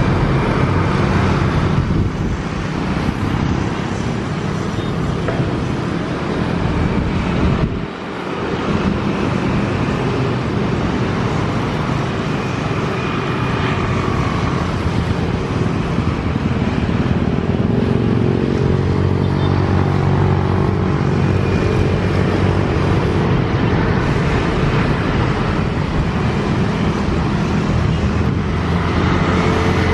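Jet engines of a Batik Air Airbus A320 running at low power as the airliner rolls along the runway: a steady rumble with a faint whine that shifts in pitch in the second half, and a brief dip in level about eight seconds in.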